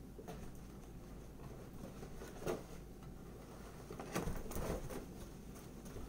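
Abrasive pad scrubbing a guitar body's finish: faint scratchy rubbing, with a short stroke about two and a half seconds in and a few more around four to five seconds in.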